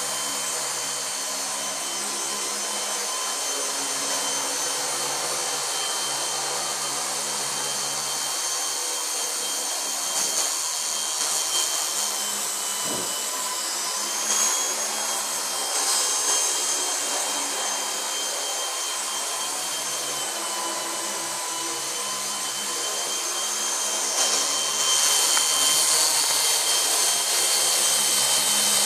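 MT200 radio-controlled helicopter in flight: the steady high whine of its electric motor and gears over the whir of the rotor blades, shifting slightly in pitch as the throttle changes. It grows louder near the end as the helicopter comes close.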